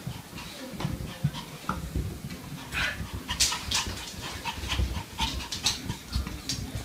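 Small puppy panting as it hops down carpeted stairs, with soft, irregular thumps.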